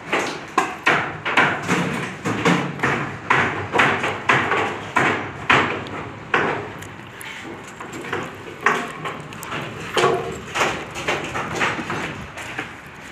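Repeated hammer blows, about two a second for the first six seconds, then fewer and more irregular.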